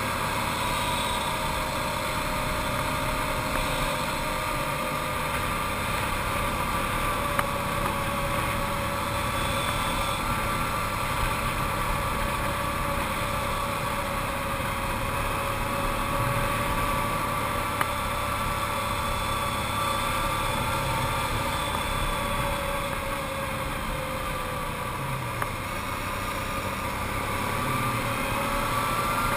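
Arctic Cat TRV 1000 ATV's V-twin engine running steadily as it climbs, its pitch drifting slightly and rising a little near the end.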